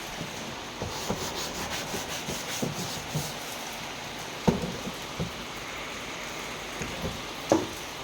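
Rubbing and scraping handling noises for the first few seconds, then a few light knocks, two of them sharper, about halfway and near the end, over a steady hiss.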